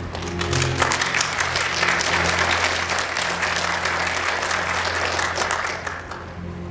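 Theatre audience applauding, swelling within the first second and dying away about six seconds in, over soft sustained music.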